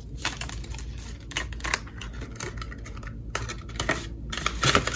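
Paper banknotes rustling as a stack of cash is handled, mixed with the crackle and light clicks of binder pages and plastic envelope pockets being flipped. A louder flurry of rustling comes near the end.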